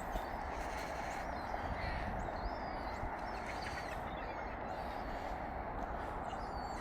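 Faint, scattered high bird chirps over a steady background hiss and low rumble.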